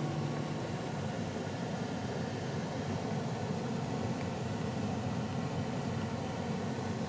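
Steady background noise, an even hiss-like rush with no music or speech.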